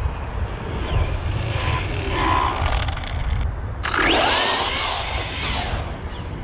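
Arrma Vorteks 3S RC truck's brushless electric motor whining up and down in pitch as it speeds up and slows, loudest a little past the middle, over a steady low rumble.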